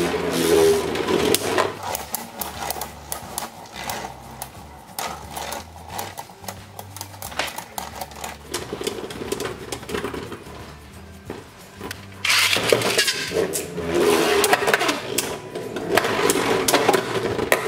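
Two Beyblade Burst tops, Infinite Achilles and World Spriggan, spinning in a plastic stadium, with quick clacks and rattles as they hit each other and scrape across the floor. Background music with a steady beat plays underneath. The clatter grows louder and busier about twelve seconds in.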